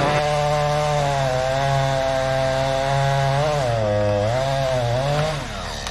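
Chainsaw running at full throttle while cutting wood. The engine note sags twice as the chain bogs down in the cut, then the saw drops away near the end.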